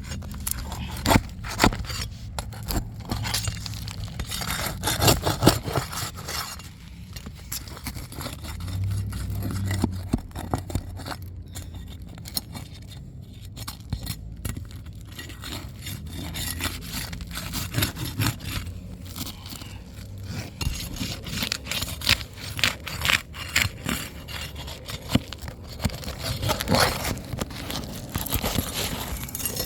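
Stapled asphalt roof shingles being pried up and worked loose: irregular scraping and crackling with many sharp clicks and snaps as the staples let go.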